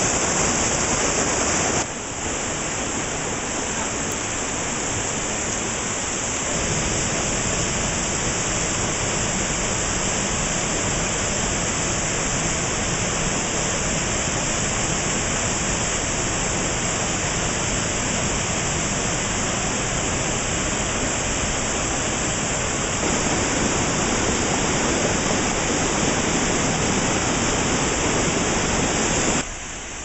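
Rushing water of a rocky mountain river tumbling over boulders in small cascades: a loud, steady rush that eases off just before the end.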